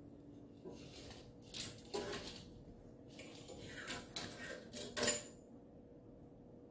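A small plastic toy on a cord rattles and clatters against a wooden floor as a kitten bats and drags it. It comes in two spells of quick knocks and scrapes, loudest about five seconds in.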